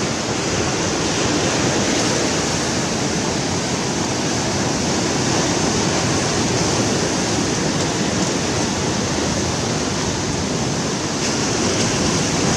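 Ocean surf breaking and washing up the beach: a steady rushing wash.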